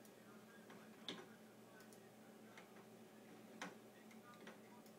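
Near silence: faint room hum with a few soft clicks, the clearest about a second in and again about three and a half seconds in.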